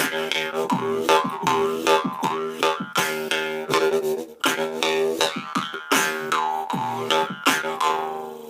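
Jew's harp drone played together with beatbox mouth percussion in the "snoring" technique: a steady twanging drone whose overtones sweep downward again and again, cut by quick clicks and plucks in a rhythm.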